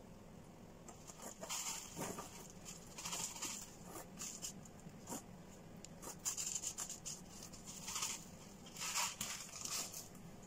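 Small gravel grit rattling as it is spooned into a small plant pot around a cactus as top dressing, in several short bursts.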